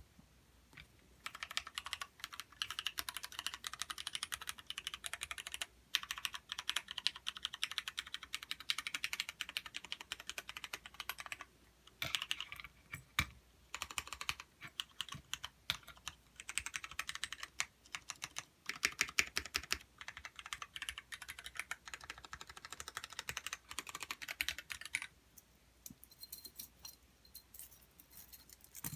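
Typing on a Duck TC-V3 custom mechanical keyboard with Cherry MX Black linear switches. Rapid keystrokes come in runs of several seconds with brief pauses, starting about a second in and stopping a few seconds before the end.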